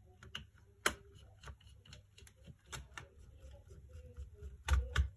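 Thin metal laptop heat shield being pressed and worked into place over the motherboard by hand, giving irregular light clicks and taps, with a sharp one about a second in and the loudest knocks just before the end.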